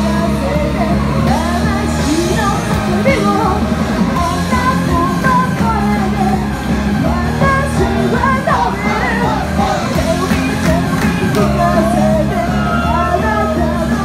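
Loud live-amplified music with a woman singing into a microphone over the accompaniment.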